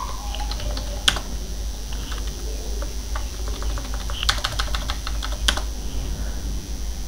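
Computer keyboard typing: scattered keystroke clicks, one sharp one about a second in, a quick run of keys around four seconds in and one more a little after five seconds.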